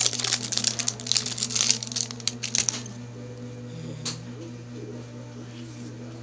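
Rapid crinkling and rustling of the cream's packaging being handled, lasting about three seconds and then stopping, over a steady low hum.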